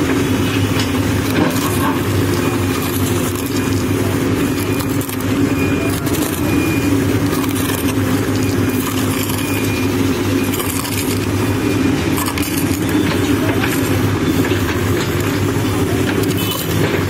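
Manitou TLB 844S backhoe loader's diesel engine running steadily under load while the backhoe digs, with occasional knocks and scrapes.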